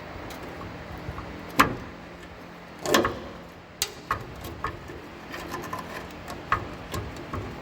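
Metal clunks and knocks from the front differential shifting in its mount, where the frame has cracked, showing a lot of play. Two loud knocks come about one and a half and three seconds in, followed by lighter taps.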